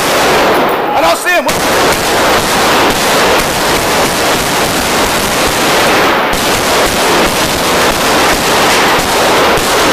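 Continuous rapid gunfire: dense automatic bursts from military rifles and machine guns without a break.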